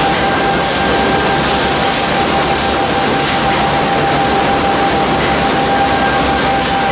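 Industrial bread line running: plastic modular conveyor belts and stainless-steel packing machinery making a steady mechanical din with a constant high-pitched hum.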